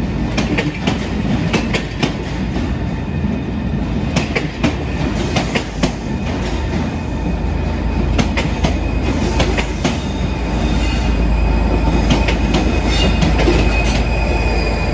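Maroon-and-cream Pullman-style passenger coaches rolling slowly past, wheels clicking irregularly over rail joints with thin, high flange squeals. A low rumble builds from about two-thirds of the way in as the diesel locomotive at the rear draws level.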